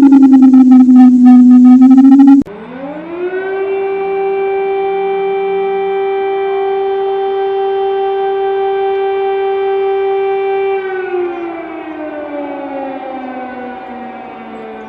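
Civil defense sirens. One siren's falling tone ends in a sudden cut about two and a half seconds in. A second siren then winds up to a steady high tone, holds it for about six seconds, and winds down slowly near the end.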